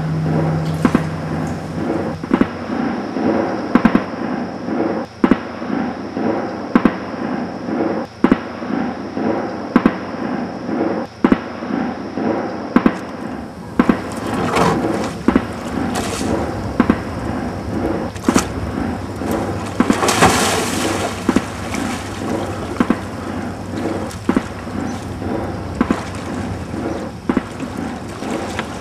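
Layered soundtrack of several overlapping video loops: a dense wash of noise broken by sharp bangs roughly once a second, with a louder hissing surge about two-thirds of the way through.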